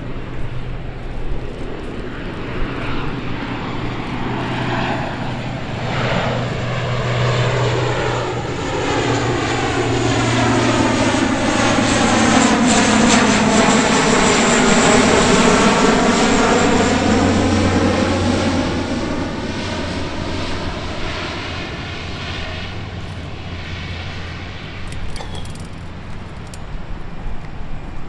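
C-130J-30 Super Hercules flying a low pass on its four Rolls-Royce AE 2100 turboprops with six-bladed propellers. The steady propeller drone grows louder as the aircraft approaches and is loudest about halfway through as it passes. The low propeller hum then drops in pitch, and the sound fades as the aircraft moves away.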